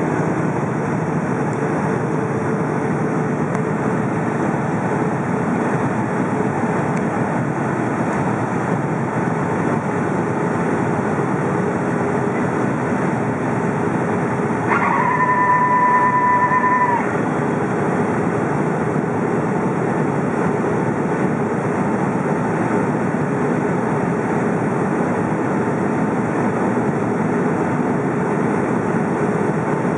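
Steady cabin noise of a Boeing 757 in flight: engine and airflow noise heard through the cabin wall. About halfway through, a steady tone sounds for about two seconds over it.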